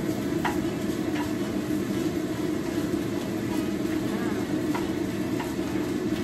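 Steady rumbling sizzle of food frying in a pan, with a few light taps of a utensil, about half a second, a second, and near five seconds in.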